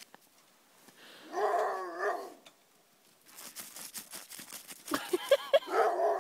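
Dogs whining in two drawn-out, wavering bouts, one about a second in and one near the end.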